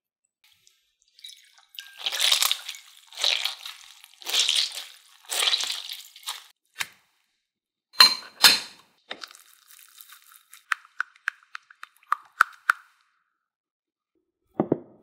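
Hands pushing gelatin sheets down into cold water in a ceramic bowl: four or five soft splashing swishes, about one a second. Then a glass bowl clinks twice, followed by a run of small faint ticks and a soft thud near the end.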